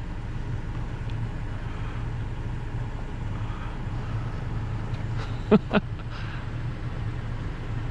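Four-wheel-drive truck creeping down a steep dirt road, its engine a steady low hum. Two short sharp knocks come about five and a half seconds in.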